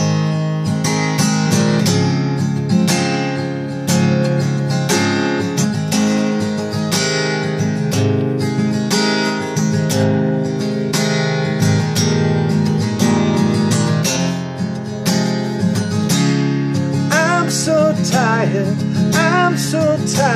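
Acoustic guitar with a capo, strummed steadily in a slow song. A sung voice comes in softly near the end.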